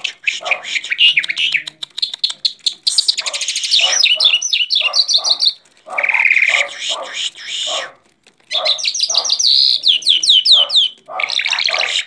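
Caged Irani Mashadi jal bird singing: a varied song of fast trills and quick sweeping whistled notes, in phrases broken by brief pauses.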